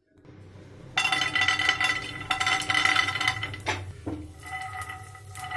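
Raw peanuts tipped into hot oil in a kadhai, setting off loud sizzling about a second in. After about four seconds the frying goes on as quieter crackling, with a few clinks against the pan.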